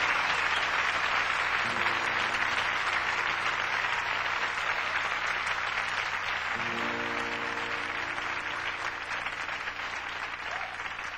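Studio audience applauding, slowly dying down. Two short instrument chords sound from the stage, about two and seven seconds in.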